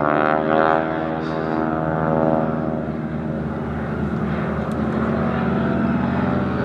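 Boeing Stearman biplane's radial engine and propeller droning in a flypast. The pitch drops over the first couple of seconds as it passes, then holds steady.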